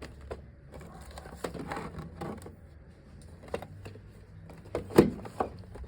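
Scattered light clicks and knocks of objects being handled, with one sharper knock about five seconds in.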